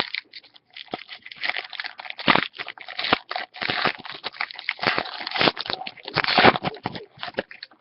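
Crinkly wrapper of a trading-card pack being crumpled and torn open by hand: a dense crackle full of sharp snaps, loudest about two thirds of the way in.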